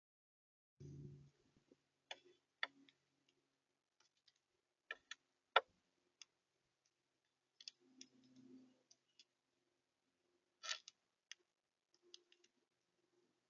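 Birds feeding at a bird feeder: scattered sharp taps and clicks of pecking at seed, with a soft low thump about a second in and another around eight seconds in.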